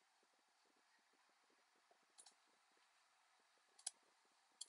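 Near silence broken by three short computer mouse clicks: a faint one about two seconds in, a louder one near four seconds and another near the end.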